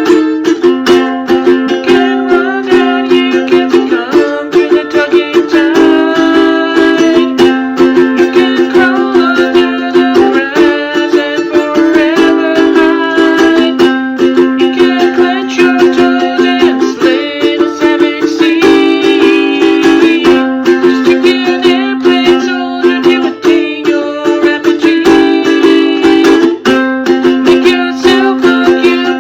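Music: a string instrument strummed in a fast, steady rhythm, the chords changing every two seconds or so.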